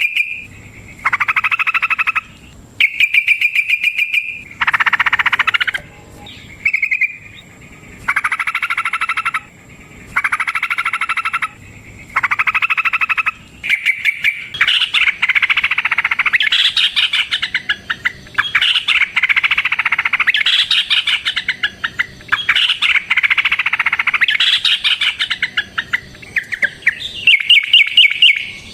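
Yellow-vented bulbul (trucukan) singing in rapid chattering phrases, each about a second long with short pauses between them. About halfway through the song becomes near-continuous and busier.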